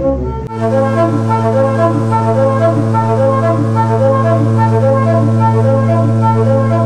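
Church organ flue pipes playing a quick repeating pattern of short notes over steady held low notes. The held notes change about half a second in.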